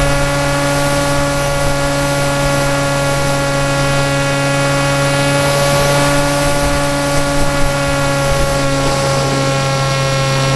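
Brushless electric motor and propeller of a PopWing flying-wing RC plane, running at a nearly constant throttle: a loud, steady buzzing hum with only slight wavers in pitch.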